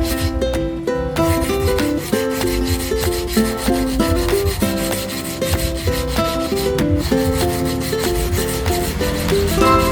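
A kitchen knife blade being stroked against a sharpener, a repeated rubbing scrape, over background music with a melody of held notes.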